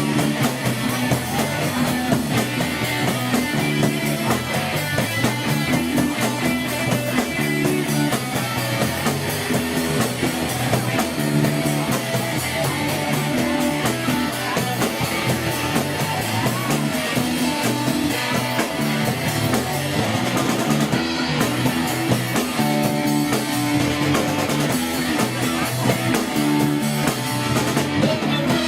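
Live rock band playing an instrumental passage: electric guitar over bass and a drum kit, with a steady beat.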